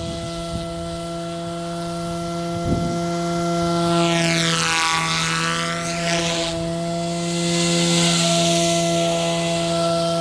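Electric SAB Goblin Fireball RC helicopter in flight: its motor and rotor head give a steady, pitched hum with a whine of overtones. Around the middle the higher part of the sound sweeps down and back up as the helicopter passes, and there is one brief knock about a quarter of the way in.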